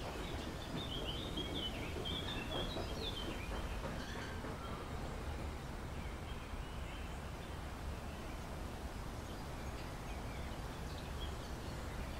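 Outdoor ambience: a steady low background rumble with small birds chirping in the first few seconds.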